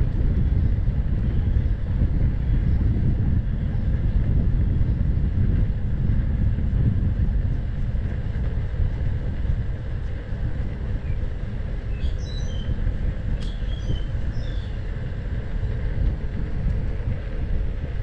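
Steady low rumble of an electric unicycle ride along a paved park path: wind buffeting the microphone and the wheel rolling. A few short, high bird chirps come through about two-thirds of the way in.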